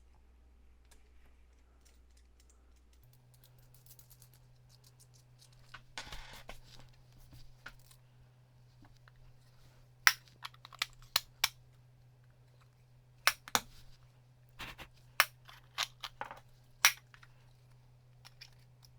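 Sharp clicks and taps of the trailer connector and air-fitting parts being handled and fitted together: a brief scrape, then about nine loud clicks spread over the second half.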